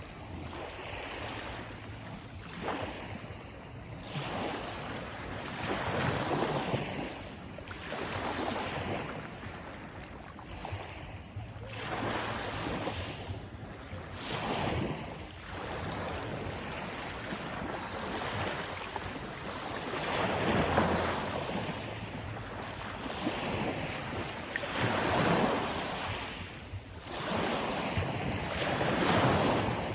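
Sea waves washing in, the noise swelling and falling back every few seconds.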